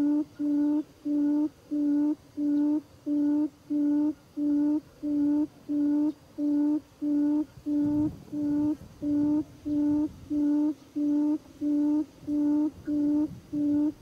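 Buttonquail decoy call played from a recording as a trapping lure: a short low hooting note repeated evenly, nearly two a second. A low rumble comes in about eight seconds in.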